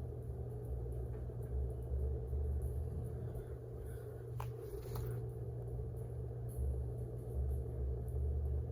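Steady low background hum, with a faint click about four and a half seconds in.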